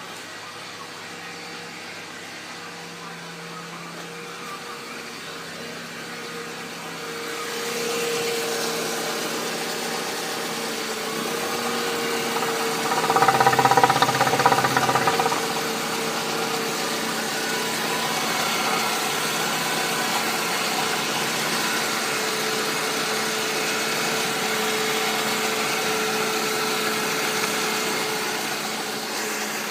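Mercedes M271 four-cylinder petrol engine running on test. It steps up in speed about seven seconds in, is revved harder for a couple of seconds around the middle, then holds at a steady raised speed.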